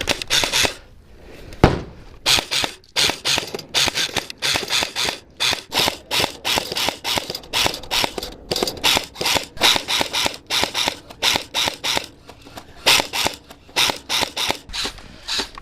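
Airsoft guns firing: rapid snapping shots in runs of several a second. One sharp, louder bang comes about two seconds in, an airsoft grenade going off.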